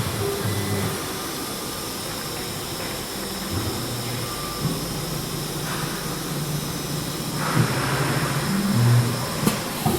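TR408H CNC router with automatic tool changer running: its axis drive motors hum at pitches that shift in steps as the machine moves, over a steady high whine. About seven and a half seconds in a louder hiss joins.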